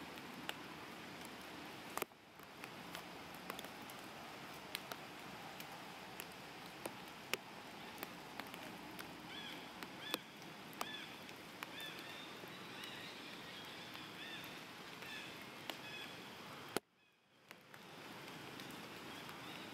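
Outdoor ambience: a steady hiss with scattered small clicks and ticks, and a run of faint high chirping calls in the middle. The sound cuts out briefly near the end.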